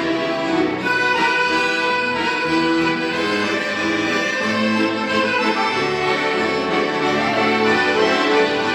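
Music: an instrumental passage of a Christian praise song, with several instruments holding and changing sustained notes together at a steady level.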